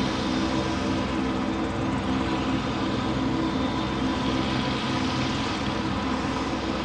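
Steady engine drone: a constant rushing noise with a low, even hum, with no changes in speed.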